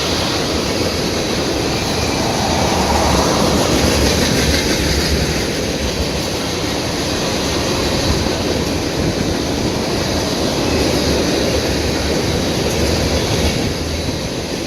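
CSX freight train of tank cars rolling past, a steady noise of steel wheels on the rails that swells and eases slightly.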